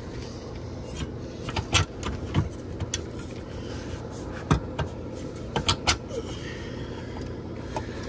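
Sheet-metal cover of an outdoor air-conditioner disconnect box being lifted and handled: a handful of sharp metallic clicks and clacks at uneven intervals over a steady low background rumble.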